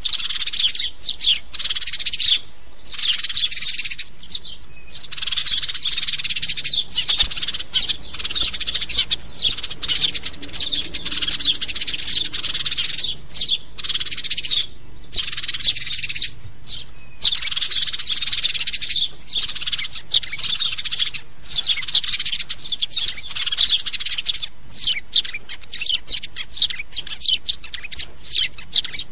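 House sparrow chirping in long, dense runs of short chirps with brief pauses between them, changing to quicker separate chirps near the end.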